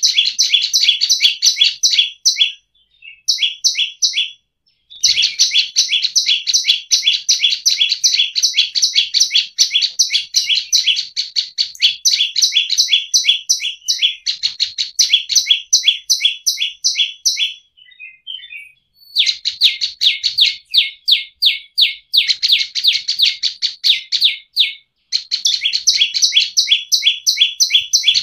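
Prenjak lumut (a prinia) singing a fast run of sharp, repeated chipping notes, in bursts of several seconds separated by brief pauses.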